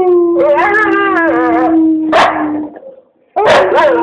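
Siberian husky howling along with a man who imitates a howl: a long steady howl with a second, wavering howl over it. After a short pause just before three seconds, the howling starts up again.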